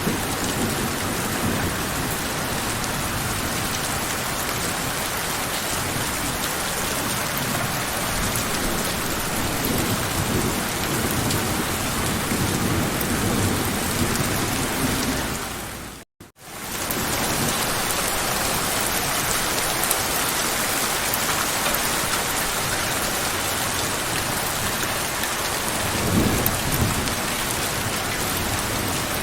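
Steady heavy rainfall with low rolls of thunder, one a little before halfway and another near the end. About halfway through the rain dips briefly to near silence and fades back in.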